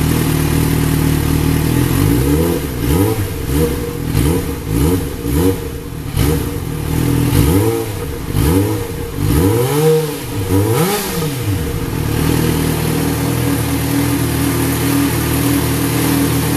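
Yamaha XJ6-F's 600 cc inline-four engine running through a Mivv Double titanium twin-muffler exhaust. It idles, is blipped about a dozen times in quick succession between roughly two and twelve seconds in, then settles back to idle.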